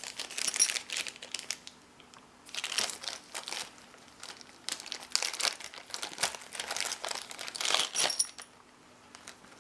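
Crinkly wrapping being handled and pulled open around a packaged padlock, in several irregular bursts of crackling.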